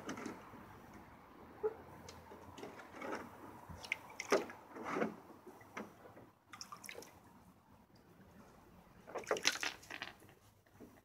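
Baby raccoon paddling and splashing in shallow water in a plastic kiddie pool: small, irregular splashes and drips, with a louder flurry of splashing near the end.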